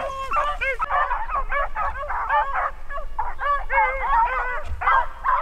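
Pack of beagles baying in many overlapping voices while running a rabbit on scent, the chase still going.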